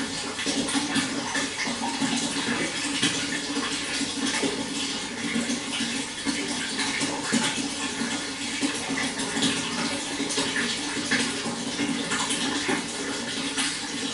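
Running water splashing and trickling steadily, with a steady low hum underneath.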